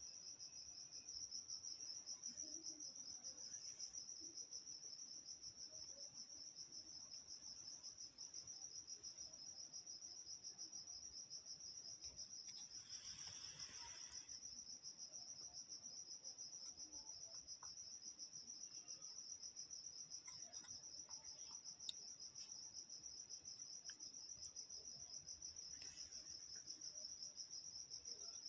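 A cricket trilling steadily, a faint high-pitched continuous chirr. A brief soft rustle about halfway through.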